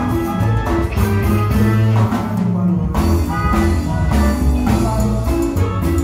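Live band playing Latin dance music loudly, bass and drum kit keeping a steady beat under guitar. The higher instruments drop out briefly about halfway through.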